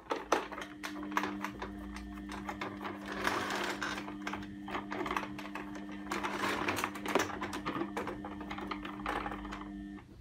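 Clicks and scrapes of a hand screwdriver working screws out of a vacuum cleaner's plastic housing, over a steady low two-note hum that cuts off suddenly near the end.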